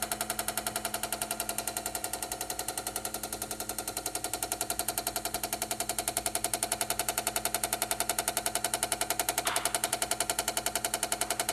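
Chamberlain garage door opener chattering with rapid, even clicking over a steady hum, the symptom of its failing control board.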